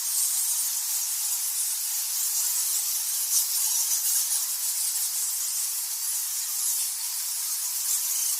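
A dense mass of bats chittering, heard as a steady high-pitched hiss with a faint fine crackle through it.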